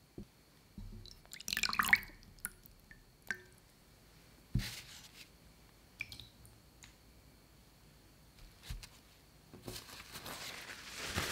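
Raw brined chicken pieces handled wet: brine splashing and dripping about a second and a half in, then scattered soft wet plops as the pieces are set down on paper towels on a metal tray. Near the end comes a rising rustle of paper towel as the chicken is patted dry.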